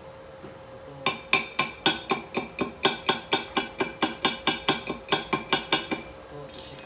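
A hand hammer striking steel in a quick, even series of about twenty metallic taps, roughly four a second, lasting about five seconds. It is typical of chipping slag off a stick-weld bead.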